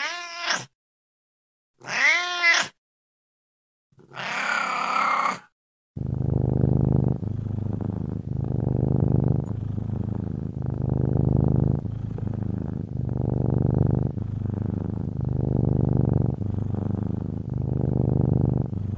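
A cat meowing three times, the first two calls rising and falling in pitch and the third rougher and longer. Then, about six seconds in, a cat purring steadily and loudly, swelling and easing with each breath about every second and a half.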